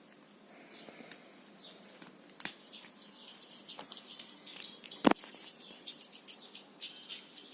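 Near-quiet handling of a smartphone whose loudspeaker stays silent, with faint scattered ticks and one sharp click about five seconds in.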